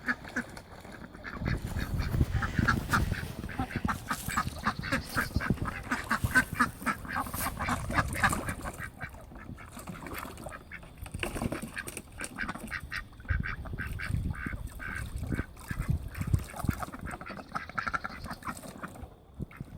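A group of domestic ducks quacking rapidly and excitedly while bathing in a small pond, with bursts of low splashing now and then.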